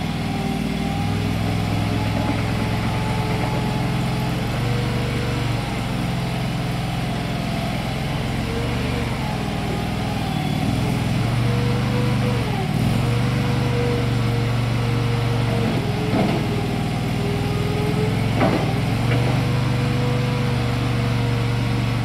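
AGT LRT23 walk-behind mini tracked skid steer's engine running steadily under load as it is operated. A higher whine over the engine dips briefly in pitch a few times, near the middle and again later.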